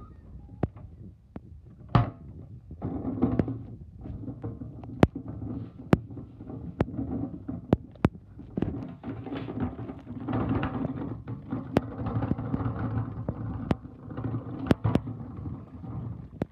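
Plastic wheelie bin being pulled along on its two wheels, the wheels rumbling and rattling over the ground, with many sharp knocks and clacks from the bin body and lid.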